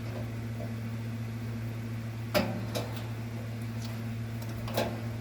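Steady low hum under a few sharp clicks of wire connectors and metal parts being handled at the dryer's element terminals; the loudest click comes about halfway.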